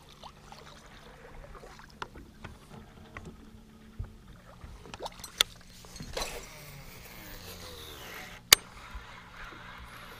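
Faint handling sounds of an angler casting and reeling from a fishing boat: scattered small clicks of the casting reel and gear, over a faint steady low hum. A brief swish comes about six seconds in as the rod is swung back for a cast, and a single sharp click near the end is the loudest sound.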